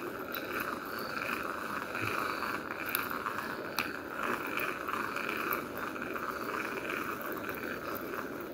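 Steady riverside outdoor ambience: a continuous hiss with a faint, pulsing chirring chorus. There are a couple of small clicks in the first half.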